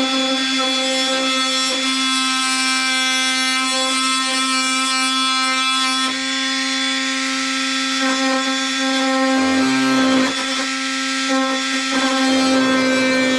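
Cordless Bauer oscillating multi-tool running with a steady high-pitched buzz as it cuts an opening for an electrical receptacle box.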